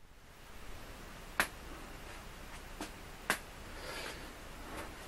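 Small milling machine cutting a practice piece on a rotary table: a faint steady hum with sharp clicks, two prominent ones about two seconds apart and a few fainter ticks between them.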